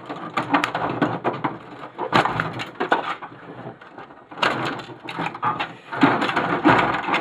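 Plastic printer parts being pulled apart by hand, crackling and rattling in four bursts of a second or so each.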